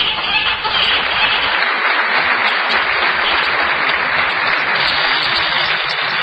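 A large theatre audience applauding, a steady dense clapping.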